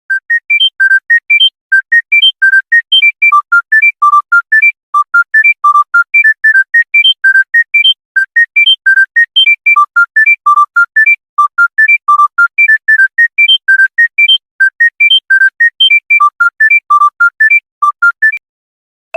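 Electronic phone ringtone: a quick melody of short, high, clean beep notes, one at a time, running up in repeated rising phrases. It stops shortly before the next ringtone begins.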